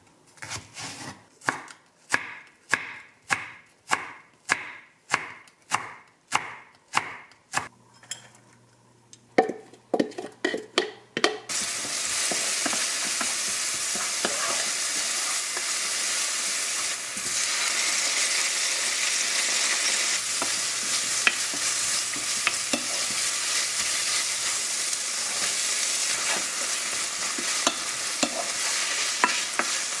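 Kitchen knife chopping a green onion on a wooden cutting board, about two strokes a second, followed by a few more knocks. About eleven seconds in, the chopped green onion sizzles steadily in hot oil in a frying pan, stirred with a wooden spatula.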